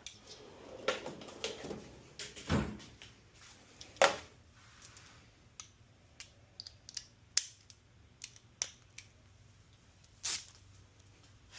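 Irregular clicks and knocks of hand tools: metal sockets being handled and fitted onto the headlight bucket bolts, with a few sharper knocks.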